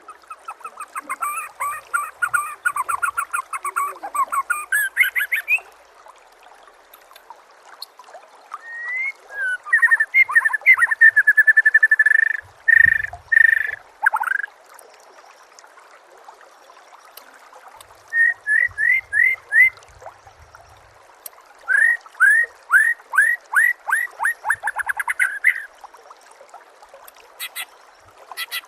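Recorded songbird song in phrases: fast trills and runs of sharp rising chirps with short pauses between them, the kind of masteran tutor recording played to train a white-rumped shama.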